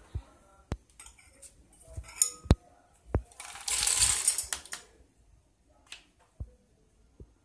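Roasted peanuts poured from a plastic bowl into a stainless steel mixer-grinder jar, rattling against the metal for about a second and a half near the middle. A few sharp clinks of the steel jar and bowls being handled come before it, and a couple of light taps after.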